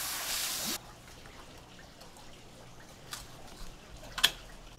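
Hose nozzle spraying water onto a swordfish, cutting off suddenly under a second in. Then it is much quieter, with a few faint clicks and one sharp click near the end.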